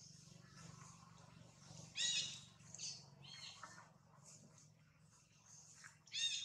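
Infant long-tailed macaque giving short, high-pitched cries: two louder arching calls, about two seconds in and near the end, with a few fainter ones between.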